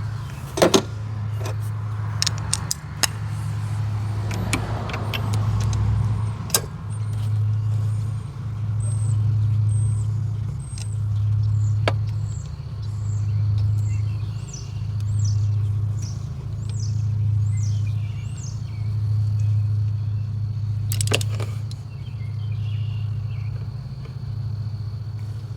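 A low hum that swells and fades about every second and a half, with a few sharp metallic clicks in the first several seconds and again near the end, typical of socket and ratchet work on a spark plug.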